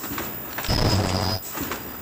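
Automatic mask inner-earloop welding machine running through its repeating cycle, about once every one and a half seconds: a low hum switches on for about half a second, alongside a high steady tone and mechanical clicks.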